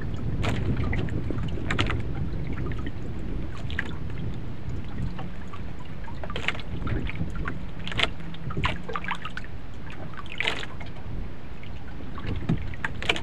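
Small wooden outrigger canoe at sea: water splashing and slapping against the hull in short, irregular bursts every second or two, over a steady rumble of wind on the microphone.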